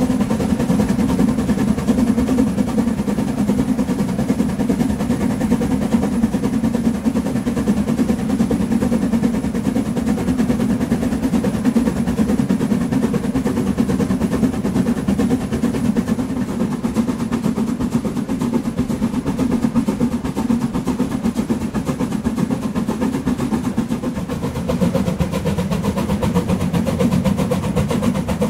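Metre-gauge steam locomotive under way, heard close behind it: a fast, steady beat of exhaust chuffs over the rumble of the train running on the rails.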